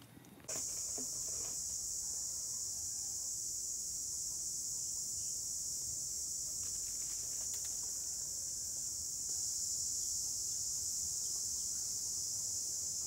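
A dense, steady, high-pitched chorus of insects in tropical forest. It starts suddenly about half a second in and grows a little louder about nine seconds in.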